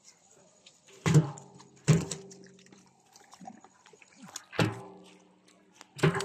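Snakehead fish striking the inside of a metal drum: four hollow bangs, each ringing on briefly like a struck barrel.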